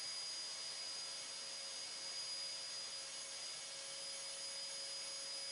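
Dust extractor (shop vacuum) running steadily, drawing air through the hose of a hand sanding block: an even hiss with a thin, constant high whine.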